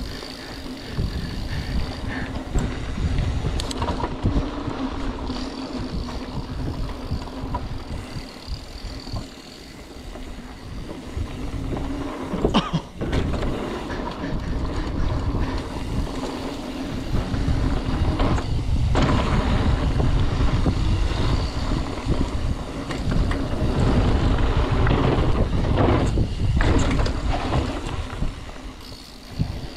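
Mountain bike descending a dirt trail: wind rushing over the microphone and tyres rumbling on packed dirt, with a few sharp knocks and rattles from the bike over bumps. The rush grows louder in the second half as speed picks up.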